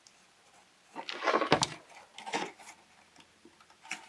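Cardstock paper model being handled and pressed: a rustle and crinkle of the paper about a second in with a short knock, then lighter rustles and a few small clicks.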